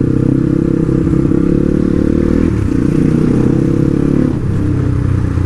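Motorcycle engine running under way at a steady pace, its note easing off about four seconds in.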